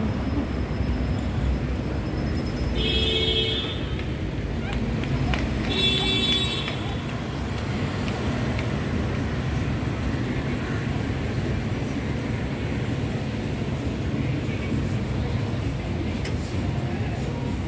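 Busy city street ambience: a steady rumble of traffic with background voices. Two short high-pitched tones sound about three seconds and about six seconds in.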